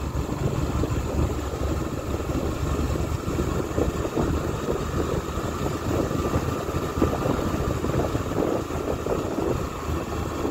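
Engine of a moving vehicle running steadily as it travels along a road.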